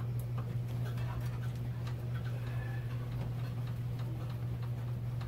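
Light, irregular clicks and taps of small metal parts being handled, as the graphics card's bracket is screwed into the computer case. A steady low hum runs underneath.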